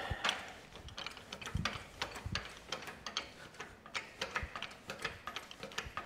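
Hand-pumped jack on a wire strain-test rig being worked to tension a high-tensile fencing wire: a run of light, irregular clicks and ticks, several a second, with a few dull knocks.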